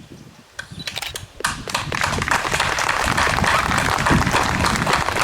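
Crowd applauding: a few scattered claps at first, then full, steady applause from about a second and a half in.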